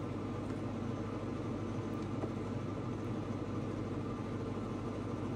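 Steady hum of a kitchen appliance's motor or fan running without change.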